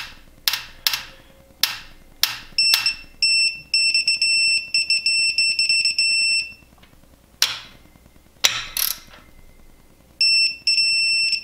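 A digital torque wrench tightening a BMW N54 main bearing cap bolt. A few sharp ratchet clicks come first, then the wrench's electronic beeper sounds rapidly for about three seconds as the set torque is reached. After a couple more clicks, it beeps again near the end.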